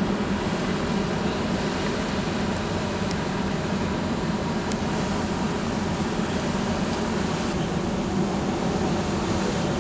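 Steady low mechanical drone of a large cruise ship's engines and ventilation fans as the ship moves slowly close by.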